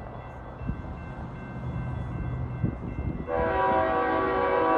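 Freight locomotive's multi-chime air horn sounding one long blast, starting about three seconds in. Before it, a low steady hum.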